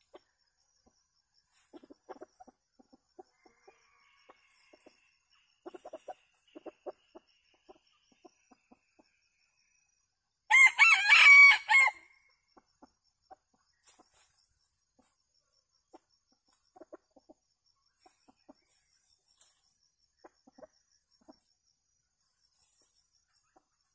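A rooster crows once, loud and brief, about ten and a half seconds in. Soft, short clucks come from the foraging chickens before and after it.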